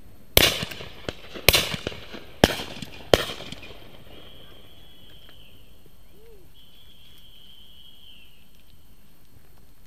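Four shotgun shots in about three seconds, the first two the loudest, each with a short echoing tail; so many shots so close together means more than one gun is firing. A faint high whistling tone follows and runs on and off for several seconds.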